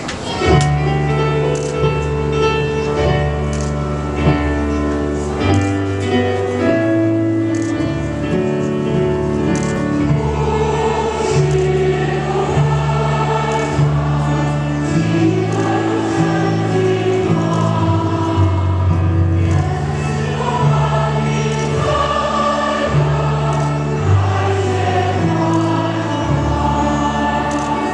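Choir singing the entrance hymn of a Catholic Mass with accompaniment, held low notes beneath the voices changing every second or two.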